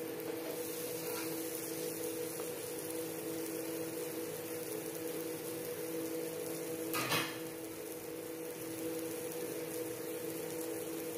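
Steady background hum and hiss, with one short metallic clack about seven seconds in as a metal spatula knocks against the cookware.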